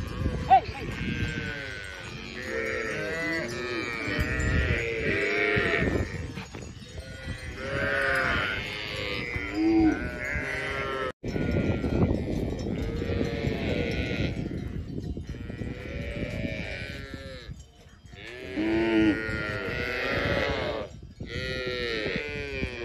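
A herd of Pulikulam cattle and their calves calling over and over: many overlapping moos and bawls, each rising and falling in pitch.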